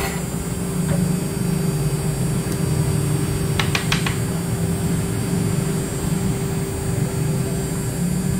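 Steady machine hum from a CNC router's motors: one constant tone over a low, wavering drone, with three quick faint clicks about three and a half seconds in.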